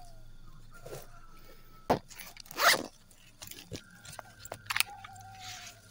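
Handling noises from gear being worked by hand: a sharp click about two seconds in, a short zip-like rasp just after, then a few lighter clicks and knocks.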